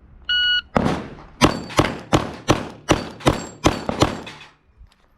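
A shot timer's start beep, then a string of about nine Glock pistol shots fired in quick succession, about three a second.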